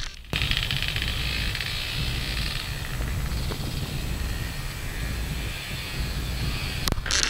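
Motor vehicle engine running with a steady drone, mixed with wind noise on the microphone. Near the end the sound changes suddenly and the hiss gets louder.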